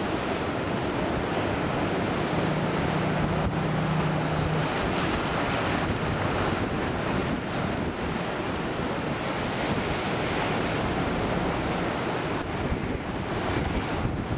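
Ocean surf breaking and washing ashore, with wind buffeting the microphone. A low steady hum sounds for a couple of seconds about two seconds in.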